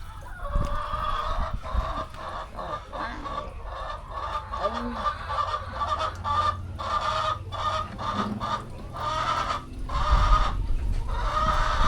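A flock of laying hens clucking, many birds calling at once in a dense, continuous chorus.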